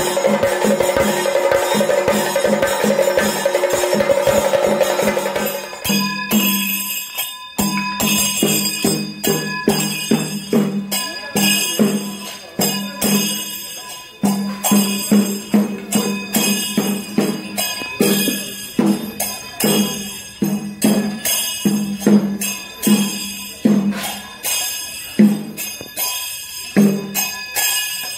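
Kerala chenda melam: chenda drums beaten with sticks, with hand cymbals (ilathalam) ringing over them. For the first five or six seconds the drumming is a fast, dense roll, then it opens into separate, heavy strokes about one to two a second with quicker strokes in between.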